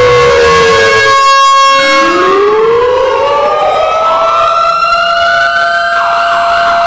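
Tornado warning sirens wailing, several siren tones overlapping. One tone falls away, then after a brief break about a second and a half in, another winds up slowly from low to a high pitch and holds there.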